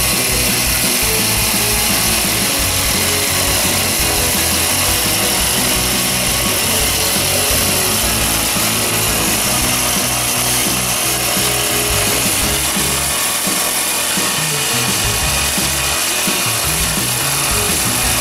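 Small two-stroke engine of the brush-cutter type running steadily at high speed, driving a homemade 4-inch pipe water pump.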